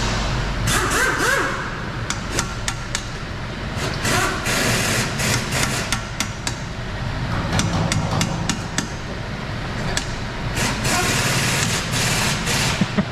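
Irregular sharp metallic knocks and clicks of hand tools working on a car's steering rack and its bolts, over a steady low hum.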